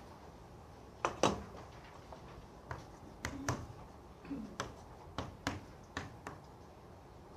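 A series of short, sharp clicks and taps at irregular intervals, about a dozen in all, the loudest two close together about a second in.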